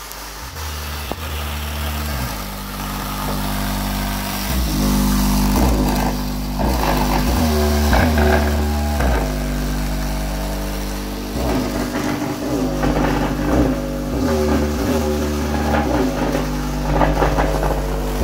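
Bass-heavy music played loud through a repaired Mac Audio subwoofer: deep held bass notes that change every second or two, with rhythmic hits above them, getting louder over the first few seconds.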